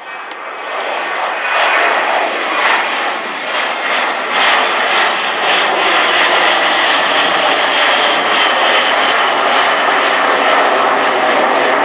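Dassault Falcon 900's three turbofan engines passing in flight: jet noise swelling over the first couple of seconds, then holding steady, with a high whine slowly falling in pitch.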